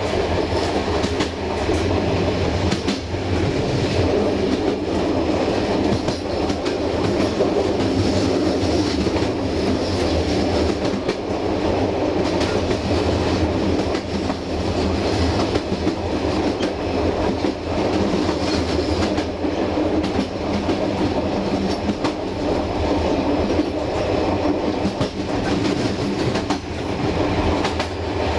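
Passenger train carriage rolling at steady speed, a constant rumble of wheels on rails with faint clicks over the rail joints.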